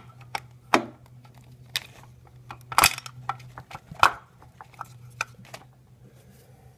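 Distributor being twisted by hand and worked down into its bore in an Oldsmobile engine block, as it is turned until its gear drops into mesh: a series of irregular clicks and knocks, the two loudest about three and four seconds in.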